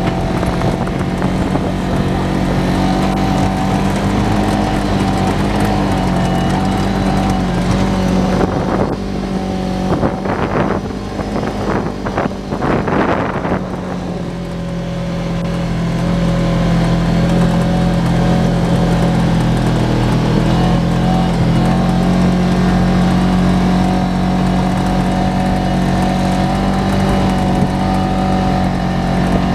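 Side-by-side UTV engine running at steady throttle, heard from inside the open cab on a dirt trail. About eight seconds in the engine note falls away for several seconds amid irregular bumping and rattling noise, then builds back up to a steady run.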